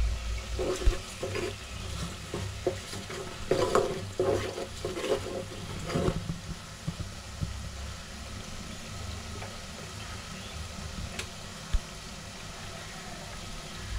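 Onion and red masala frying and sizzling in an aluminium pot, stirred with a metal spoon that scrapes and clinks against the pot in irregular strokes through the first half. After that the steady sizzle carries on alone.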